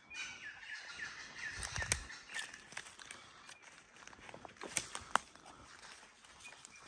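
Footsteps of a walker and a dog moving through leaf litter and fallen twigs, with several sharp cracks, the loudest about five seconds in. A bird gives a quick run of repeated chirps in the first two seconds.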